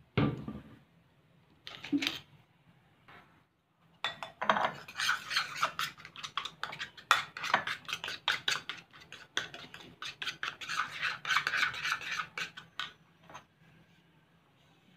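Metal spoon stirring glue in a bowl, rapidly scraping and clinking against the bowl's sides from about four seconds in until near the end. A knock comes at the very start, and a brief clink about two seconds in.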